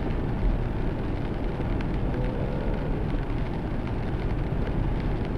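Steady road noise inside a Land Rover's cabin while it is driven at speed: the engine and the tyres running on wet tarmac, heard as a continuous low rumble.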